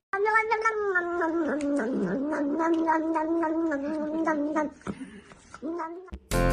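A cat giving one long, wavering yowl lasting about four and a half seconds, followed by a short call.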